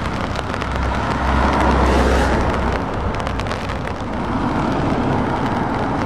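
Heavy trucks' diesel engines running in slow-moving road traffic, with tyre and road noise; a low engine drone swells from about one to three seconds in, then eases.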